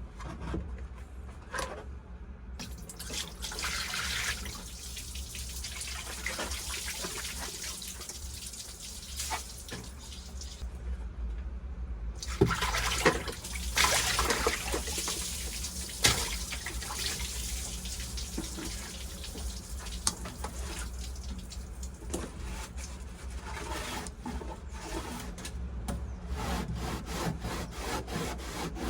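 Water running from a tap into a bucket, with a short break partway through and a few sharp knocks of the bucket.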